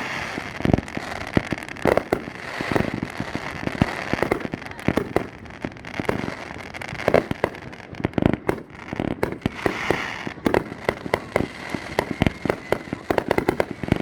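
Fireworks display: a rapid, irregular string of bangs and pops from shells bursting overhead, with crackle in between, thickening into a denser barrage in the last few seconds.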